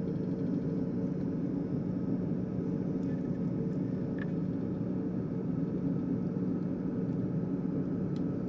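Steady low hum of a small fan or motor. A few faint light clicks come from jumper-wire sockets being handled and slid onto the rotary encoder's pins.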